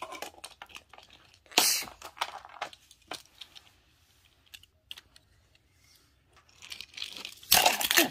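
Small toy cars being handled and moved about: scattered light clicks and rustles, a quiet stretch in the middle, then a denser run of clicks and clatter near the end as the toys are grabbed and bumped together.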